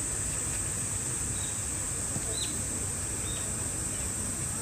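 Steady high drone of summer insects, most likely cicadas, with three or four short high bird chirps over a low outdoor murmur.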